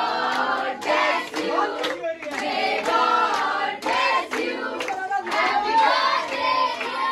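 A group of children and teenagers singing together, clapping their hands in time at about two claps a second.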